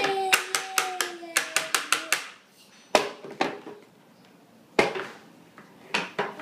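A toddler holds a sung note for about two seconds while rapidly hitting the strings of a small toy guitar. Then come a few single, louder hits on the toy guitar with short quiet gaps between them.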